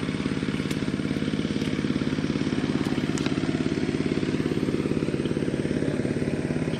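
A small engine running steadily at an even speed, with a regular pulsing beat.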